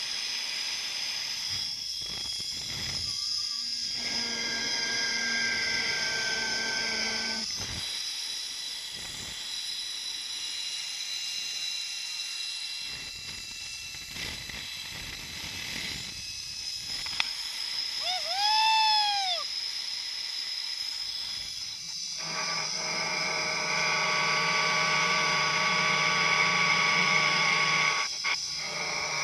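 Zipline trolley's pulley wheels running along the steel cable: a high whine with several tones that slowly shift in pitch, over a hiss of rushing air. About 22 seconds in the whine gets fuller and a lower hum joins it. A brief high call that rises and falls cuts through about two-thirds of the way in.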